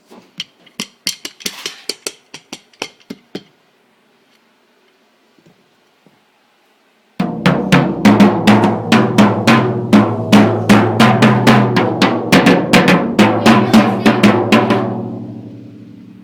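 A quick run of sharp clicks for a few seconds, then, after a pause, a loud drum beat of snare hits over a steady low tone, about three to four strikes a second, that fades away near the end.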